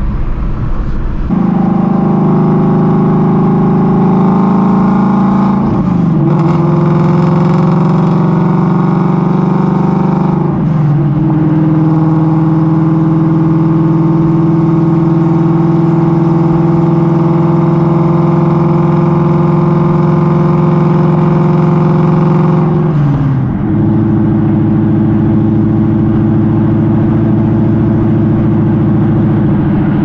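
2016 Ford Mustang Shelby GT350's straight-piped 5.2-litre flat-plane-crank V8, long-tube headers and exhaust valves open, droning loudly at steady revs. The pitch steps down three times, about six, ten and twenty-three seconds in, at gear changes.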